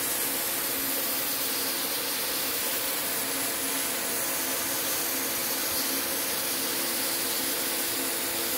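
CNC plasma cutter torch cutting 1.6 mm galvanised steel sheet: a steady hiss of the plasma arc and its air jet, with a faint steady hum underneath.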